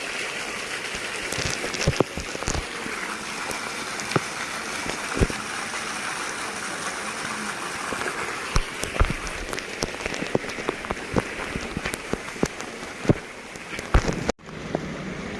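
Heavy rain falling steadily, with irregular sharp taps of drops landing close to the microphone. The sound cuts out abruptly for a moment near the end.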